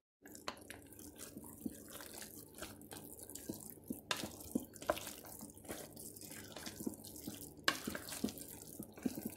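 A spoon stirring chopped vegetables into thick cheese sauce in a crock pot: wet, sloppy mixing sounds with frequent light knocks and scrapes of the spoon against the pot.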